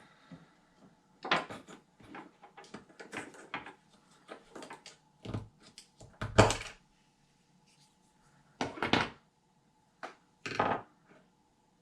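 Clicks, taps and knocks of small RC truck parts and tools being handled on a workbench, irregular, with the loudest knock about six seconds in and two more near the end.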